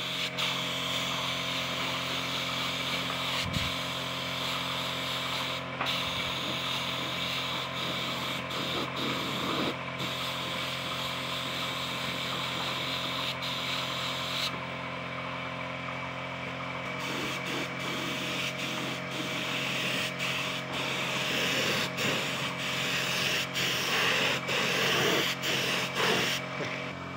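Compressed-air spray gun hissing as it sprays a glossy wood finish onto a panel, over the steady hum of an air compressor. The hiss cuts off for a couple of seconds just past the middle, then resumes.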